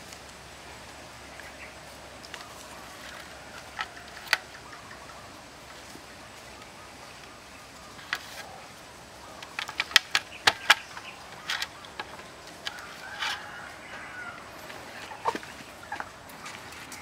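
Salmon head pieces being handled and turned in flour on a metal tray: scattered sharp clicks and light knocks against the tray, with a quick run of them about ten seconds in.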